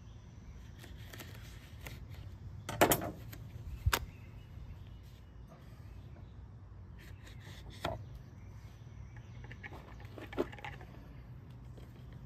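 A knife cuts through 100% cotton denim on a wooden board, with a few sharp knocks of the blade or hand against the wood; the loudest come about three and four seconds in. A low, steady hum runs underneath.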